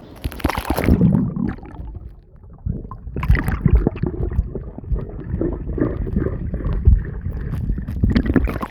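Pool water splashing and sloshing close to the microphone as a swimmer moves through it, in irregular strokes with a heavy low rumble.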